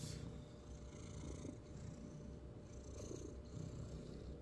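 An orange tabby cat purring steadily while a hand strokes its head, with soft rustling of fur under the hand.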